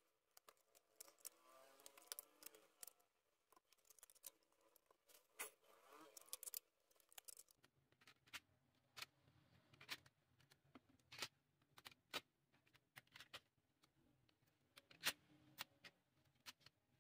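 Quiet handling noise: faint, scattered clicks and taps of a smartphone, its rubber-banded screen and plastic packaging being picked up and set down on a worktable, with a faint low hum coming in about halfway.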